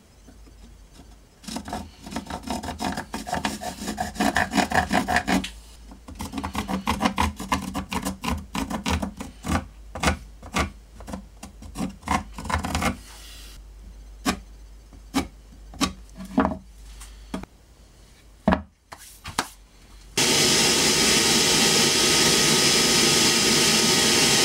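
Quick, rhythmic scratching strokes of a marker tracing an outline on a wooden block, thinning to single strokes. About 20 seconds in, a bandsaw abruptly takes over, running loud and steady as its blade cuts through the wooden block.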